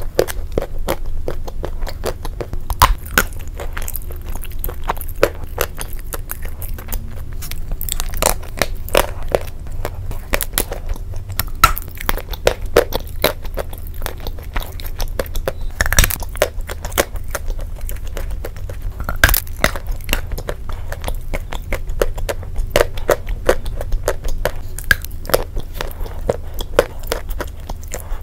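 Close-miked biting and chewing of Turkestan clay chalk coated in soft paste: soft crunches and a dense run of small crackles as the chalk breaks up in the mouth, with several louder, sharper bites spread through.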